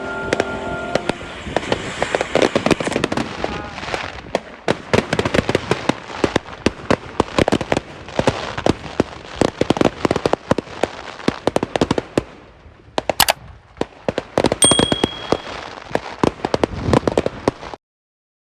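Fireworks going off: a rapid, dense run of crackling bangs and pops that thins out after about twelve seconds, then cuts off suddenly near the end.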